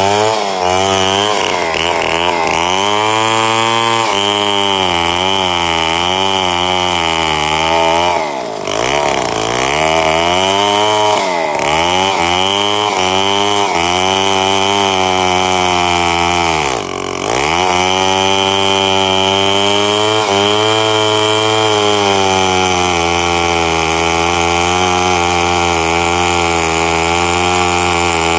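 Two-stroke chainsaw running at high revs and cutting, its pitch wavering as the chain loads and unloads in the wood. It bogs down sharply twice, about eight and seventeen seconds in, then picks back up.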